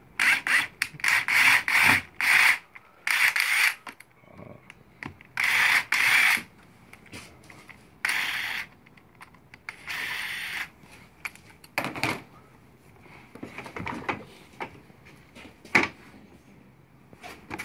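Cordless drill run in about six short, loud bursts, backing a screw out of a plastic pump cap with a scratchy, rubbing sound. This is followed by a few sharp knocks and clicks as the plastic pump parts are pulled apart.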